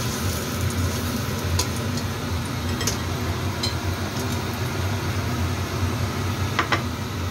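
A steady low kitchen hum under ginger slices heating in oil in a nonstick frying pan, with a few light clicks of a spatula against the pan.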